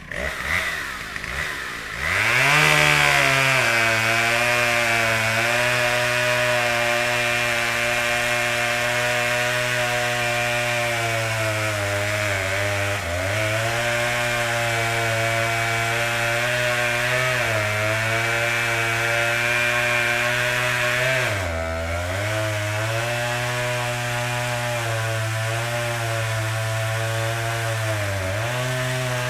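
Chainsaw revving up about two seconds in, then running and cutting into wood at a steady high pitch that sags briefly four times as the chain bites under load.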